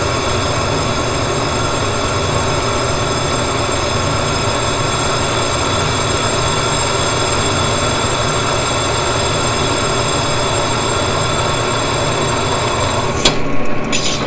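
Ryobi benchtop drill press running steadily, its glass drill bit grinding into a wet glass bowl. Near the end the steady sound breaks up, with a sharp click.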